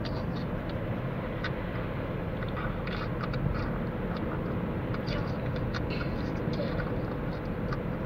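Steady road noise of a moving car heard from inside the cabin: an even rumble of engine and tyres, with scattered light clicks.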